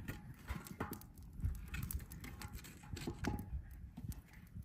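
Wood campfire crackling, with irregular sharp pops over a low wind rumble.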